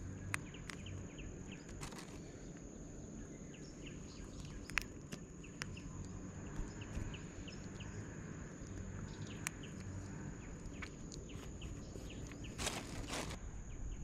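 Insects trilling in a steady high drone over faint low rumble, with scattered small clicks and knocks and a short rustling burst near the end.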